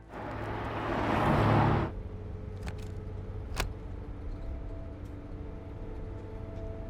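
A car's noise swelling to a loud rush over about two seconds and cutting off abruptly, then a steady low engine rumble with a couple of sharp clicks.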